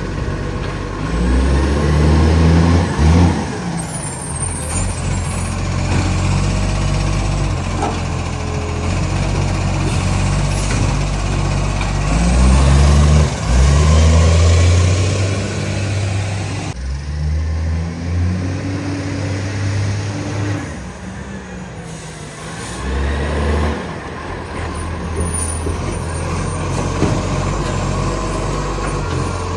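Garbage truck's diesel engine with an exhaust leak, its revs repeatedly climbing and dropping back as the truck works through stops, with air-brake hisses.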